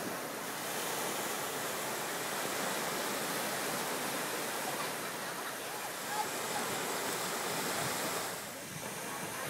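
Small waves breaking and washing up on a sandy beach: a steady wash of surf.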